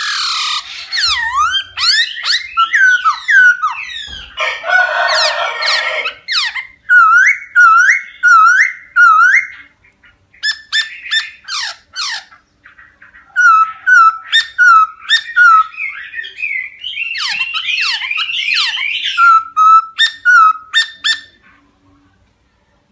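A laughingthrush (khướu) singing a loud, varied song: runs of repeated whistled notes that swoop down and back up, rapid stuttering phrases, and a harsh, chattering passage a few seconds in. The song stops shortly before the end.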